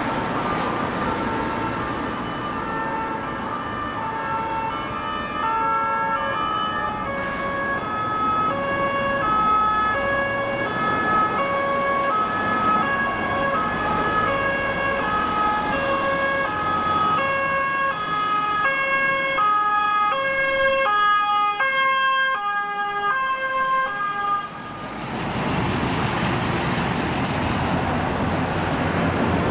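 Ambulance two-tone sirens, each flipping back and forth between a high and a low note, with a second siren overlapping out of step with the first in the later part. The sirens cut off about 25 seconds in, leaving the steady rumble of the vehicles' engines and road noise.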